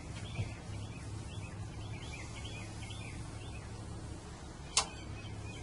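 Small birds chirping repeatedly in the background over a low steady hum, with one sharp click near the end.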